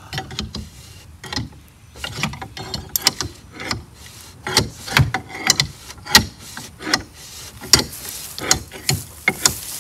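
Irregular metallic clicks and clunks, one or two a second and sometimes in quick runs, as a part seized on a 1964 VW Beetle after over 25 years of sitting is worked loose by hand with oil in it.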